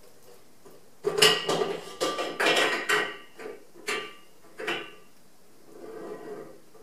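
A burst of metallic clattering and clinking: a run of sharp knocks with a ringing tone, starting about a second in and going on for about four seconds, then fainter rattling near the end.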